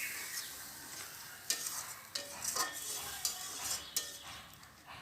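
Ground spice paste frying with a little water in a kadai, sizzling steadily while a spatula stirs it, with several short scrapes against the pan.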